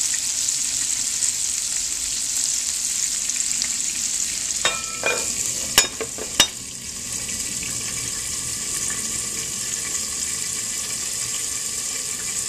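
Flour-coated chicken pieces sizzling steadily in hot olive oil in a frying pan. About five seconds in, a metal lid is set on the pan with a short ringing scrape and two clinks, and the sizzling goes on a little quieter under the lid.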